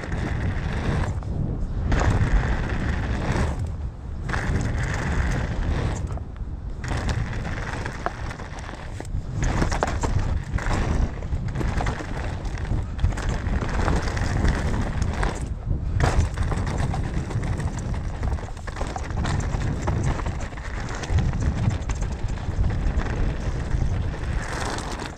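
Mountain bike riding down a dirt trail: tyre noise over the dirt with wind rumble on the rider's camera microphone, dropping away briefly several times.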